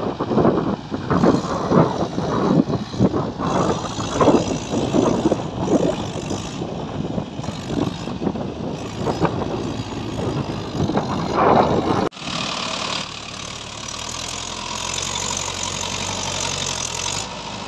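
Tractor diesel engine working a rotavator through wet paddy mud, heard under uneven, gusty noise. After an abrupt cut about twelve seconds in, the engine runs steadily with a clear, even hum.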